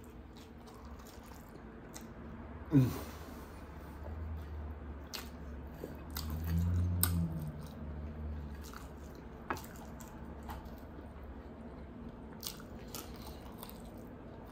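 Close-miked chewing and biting of sticky sesame chicken wings, with wet mouth clicks scattered throughout. A short vocal sound falling in pitch, the loudest moment, comes about three seconds in, and a low hum sounds from about six to eight seconds in.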